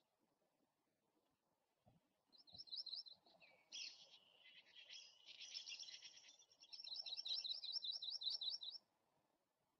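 A bird calling in quick series of high-pitched chirps, starting about two seconds in and breaking off near the end. The last run is the loudest and fastest, at about six notes a second.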